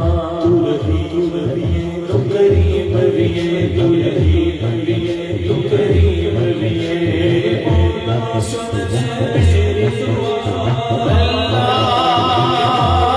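A hamd (devotional hymn) sung by a male vocalist into a microphone, with backing voices chanting and a steady low beat underneath.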